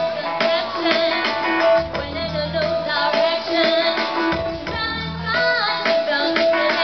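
Live pop band music led by guitar, playing steadily.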